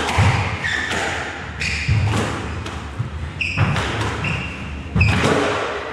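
Squash rally: the ball is struck by racket and hits the walls in loud, echoing smacks about every second and a half. Short high squeaks of court shoes on the wooden floor come between the hits.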